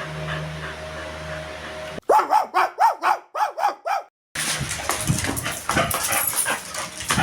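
A dog barking in a quick run of about eight sharp barks that starts abruptly about two seconds in, followed after a brief gap by a dense, noisy jumble.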